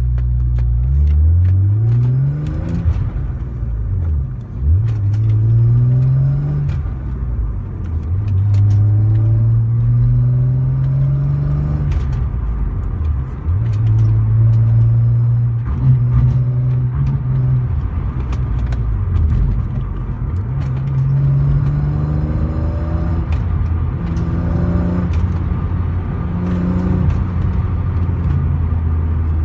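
Car with a modified aftermarket exhaust running, its engine note climbing, holding and dropping again several times as the revs rise and fall. Scattered sharp ticks sound through it, and an abnormal noise is said to come from the front (header) section of the modified exhaust.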